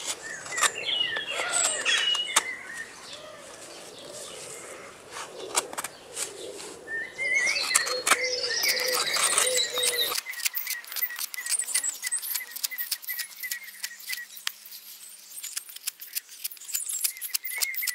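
Hook knife carving out the bowl of a green birch kuksa cup: rapid short scraping cuts as chips come away, denser in the second half. Birds chirp repeatedly in the background.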